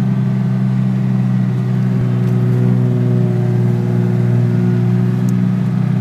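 Four-wheel drive's engine and drivetrain running at steady revs, heard from inside the cabin while driving on sand.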